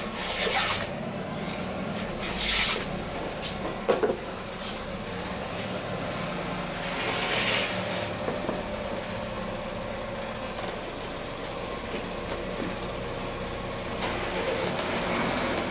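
A hand plane taking shavings off the edge of a wooden boat plank: two short rasping swishes in the first three seconds, a sharp knock about four seconds in, and another rasp a little later, over a steady low hum.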